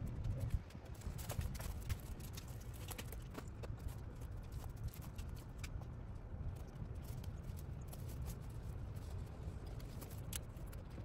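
Faint, irregular snaps and rustles of weeds being pulled up by hand, over a low steady rumble.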